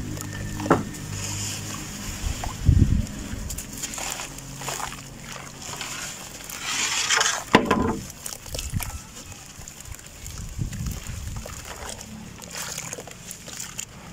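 Dry red dirt crumbling and dropping into a basin of water, then hands sloshing and squelching the wet mud, with repeated splashes; the loudest burst of crumbling and splashing comes a little past the middle. A low steady drone sits underneath in the first few seconds.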